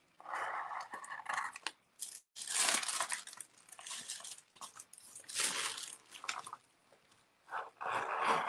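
Carbon paper and a paper tracing pattern rustling and crinkling in several short bursts as they are lifted and handled.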